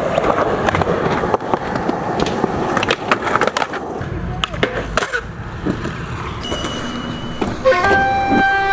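Skateboards rolling on concrete, with sharp clacks of boards striking the ground and ledges. Late on, a steady high tone comes in, followed by a louder held tone with overtones.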